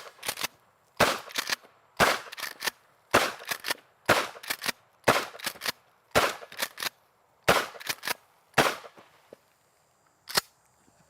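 A Mossberg 590 Shockwave, a short-barrelled pump-action shotgun, fires a rapid string of about ten shots, roughly one a second. Each loud report is followed by a few weaker sharp sounds.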